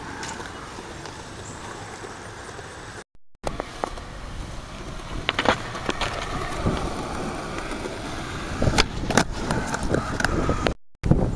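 Skateboard wheels rolling on concrete, a steady rumble, with several sharp clacks of the board striking the ground. The sound drops out briefly twice.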